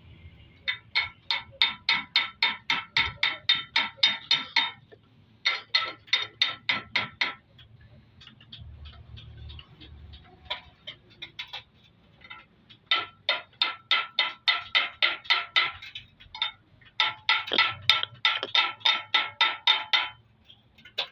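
Rapid light hammer taps on a metal part, about five a second, each strike ringing. They come in several runs separated by short pauses and a few scattered taps.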